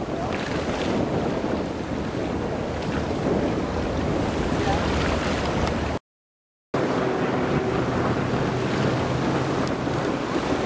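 Wind buffeting the microphone over water noise, with the drone of a ship's engines. The sound cuts out completely for under a second past the middle, and a steady low hum stands out after it.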